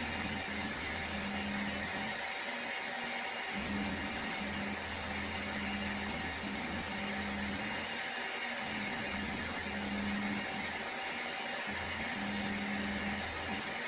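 Milling machine running, its cutter shaping a round boss on a workpiece held on a rotary table, with a lower hum that comes and goes every two to three seconds.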